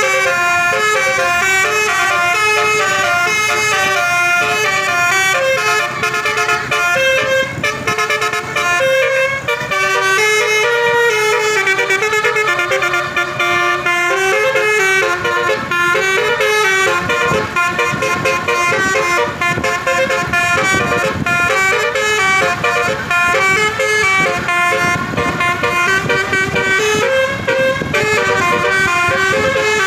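Indonesian bus 'telolet' musical horn playing a long, continuous tune of stepping tones. A low rumbling noise joins underneath about halfway through.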